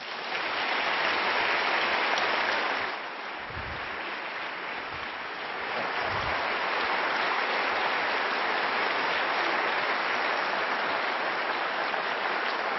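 Audience applauding, a dense steady clapping that dips slightly about three seconds in and picks up again about six seconds in.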